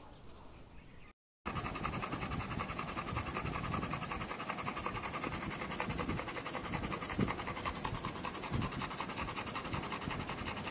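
Labrador panting rapidly and steadily, close up, with a fast even rhythm of breaths after a brief silent gap about a second in.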